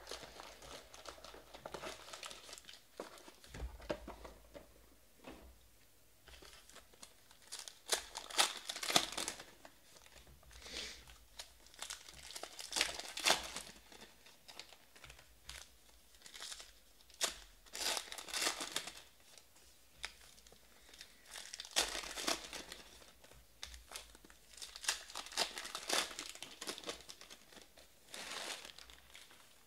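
Foil trading-card pack wrappers being torn open and crinkled by hand, in bouts every few seconds.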